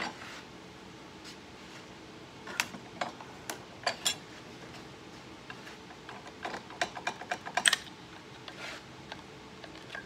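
Knife latch lancing press and metal screen frame: light metallic clicks and clacks as the frame is set in the press and the lancing blade is brought down to punch the knife latch slot. The clicks come in two scattered clusters, one about two and a half seconds in and a busier one around seven seconds in.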